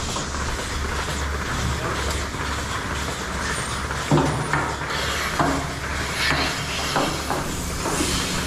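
Steady low hum of machinery running, with a series of sharp metallic clanks and knocks starting about four seconds in.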